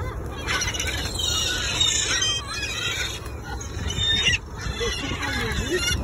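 A flock of gulls calling, many squawking cries overlapping in a busy chorus around the feeding spot.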